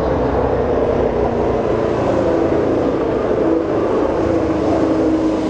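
Racing car engine running loudly, its pitch slowly falling over the last couple of seconds.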